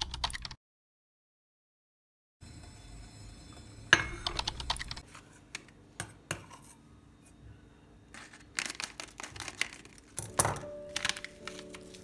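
Light clicks and taps of a cup, saucer and sachet being handled on a stone countertop, starting about two seconds in and coming in scattered clusters. Soft background music comes in near the end.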